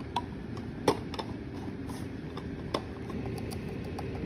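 A catnip container being handled and opened: a few light clicks and taps, the sharpest about a second in, over a steady low hum.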